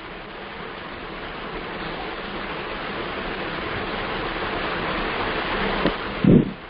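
A steady rushing noise, like rain or running water, slowly growing louder, with one brief low sound a little after six seconds in.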